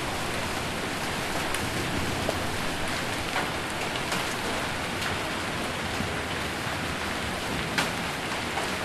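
Heavy rain with hail falling on a roof: a steady, dense hiss of strikes, broken by a few sharp, louder ticks of single stones or drops, one of them near the end.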